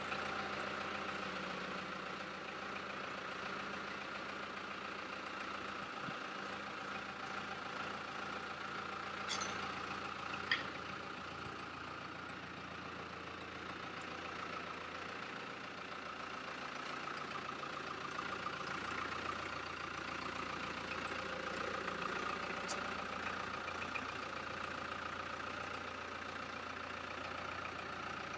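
Milwaukee die grinder running steadily, with a couple of short clicks about ten seconds in.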